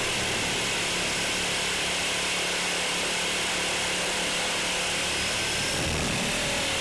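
Blade 400 electric RC helicopter running, heard close up as from a camera mounted on it: a steady rush of rotor and wind noise with a constant motor whine through it.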